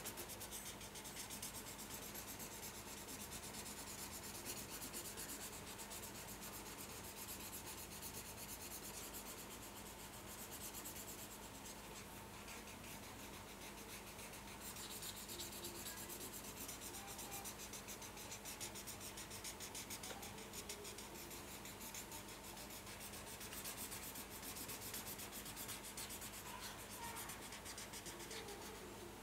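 Felt-tip marker tip scribbling on paper in quick back-and-forth scratchy strokes, colouring in a filled shape, over a faint steady hum.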